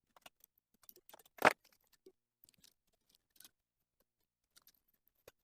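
Scattered small clicks and taps from a smartphone's parts and repair tools being handled during reassembly, with one sharper, louder click about one and a half seconds in.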